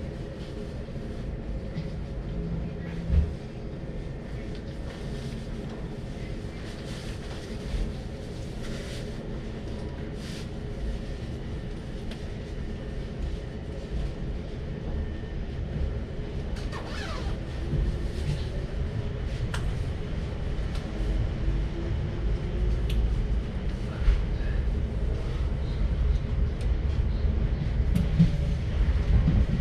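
Low rumble of a suburban passenger train heard from inside the carriage as it pulls away, growing steadily louder as it gathers speed. A faint rising whine comes in about halfway through, and there are a few sharp knocks.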